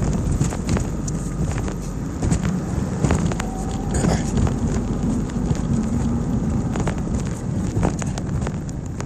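Car on the move, heard from inside: a steady low road rumble with scattered clicks and crackles, dying down near the end as the car slows.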